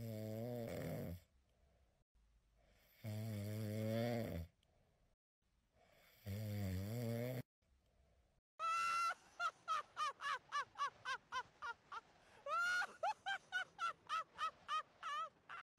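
Three long, deep snores about three seconds apart. From about halfway in they give way to a rapid run of short, high, squeaky chirps, about three or four a second.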